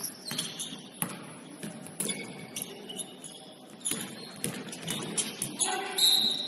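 Basketball game in a gym: scattered ball bounces and thuds on the hardwood floor, a few short sneaker squeaks, and faint players' voices in the hall.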